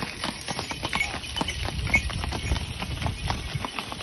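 Hooves of a pair of draught horses clopping irregularly on a wet dirt road as they walk past pulling a wooden cart, with a low rumble of the cart rolling behind them.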